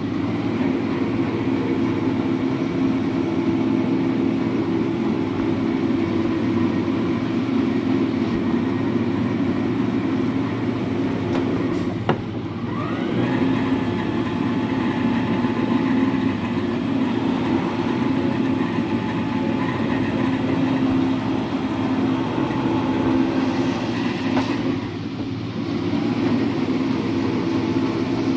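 Metal planer running as it planes the cast-iron bed of a lathe, a steady machine hum. The hum is broken twice, about twelve seconds apart, by a click and a short dip, with a rising whine after the first one.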